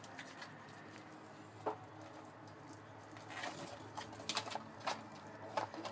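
Scattered light taps and clicks on a plastic tub where bearded dragons and crickets are moving about: one tap about a third of the way in, then a loose run of them in the second half, over a faint steady hum.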